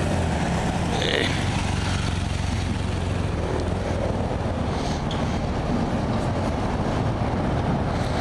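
Police motorcycle engine running as the bike rides past close by and away, its steady low hum strongest in the first few seconds and then fading into the noise of street traffic.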